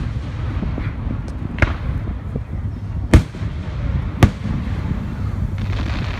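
Fireworks going off: several sharp bangs, the loudest about three seconds in and another just after four seconds, over a low steady rumble.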